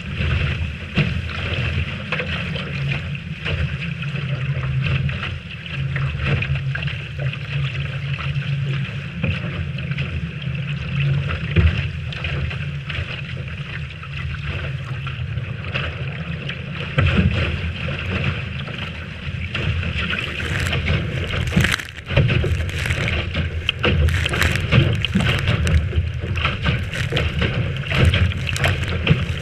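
Wind buffeting the microphone over the rush of water along a Lightning-class sailboat's hull in a strong breeze. From about twenty seconds in come repeated sharp splashes.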